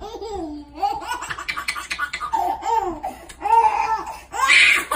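A baby laughing in repeated short bursts, the loudest near the end.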